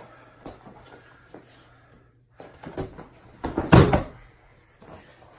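Judo throw (ouchi gari) landing: a few scuffs of bare feet on the mat, then about three and a half seconds in a loud heavy thud as the thrown partner's body hits the padded mat.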